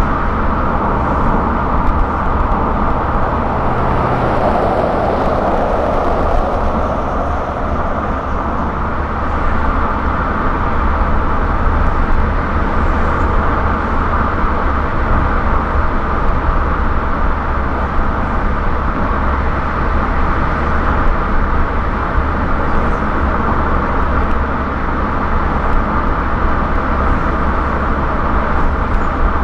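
Car driving at highway speed: steady tyre and road noise with a low rumble and a faint steady hum, swelling briefly about four seconds in.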